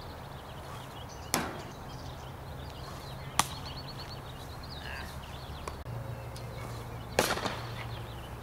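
Three sharp knocks from wiffleball play: one about a second in, one at about three and a half seconds, and one near the end, over a steady low hum.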